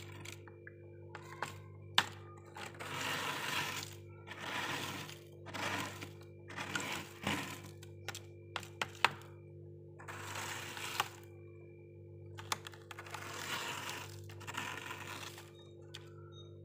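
A small plastic measuring spoon scraping soft freezer frost from the freezer ceiling in repeated crunchy strokes, each about half a second to a second long, with a few sharp clicks of the spoon knocking in between. A steady low hum runs underneath.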